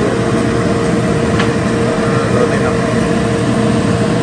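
Steady mechanical whir with a constant hum, the running noise of a kitchen stove and appliances while a big stockpot of beef broth heats on a gas burner. A faint tap comes about a second and a half in.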